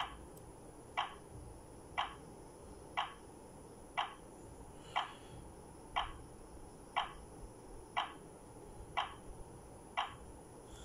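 Daytech wireless home alarm system ticking out its arming countdown: a short, even tick once a second, like a clock, during the exit delay after the system is armed.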